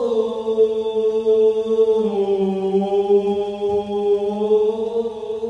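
A voice held in a granular synthesiser, played as one sustained chant-like drone whose pitch and colour are shaped by the performer's hand gestures tracked by a Kinect. The pitch dips slightly about two seconds in and comes back up about a second later.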